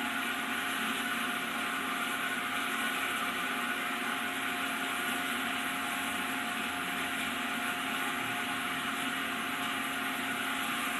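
Hamai 60SP CNC gear hobbing machine running: a steady mechanical hum with several constant tones and a hiss, unchanging throughout.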